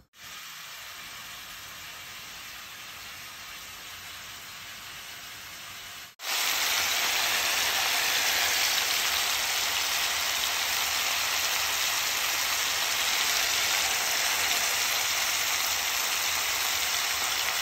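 Seasoned oxtail sizzling in hot fat in a pot, being fried down and browned before any water goes in. The sizzle is quieter for about six seconds, then after a brief break it comes back much louder and steady.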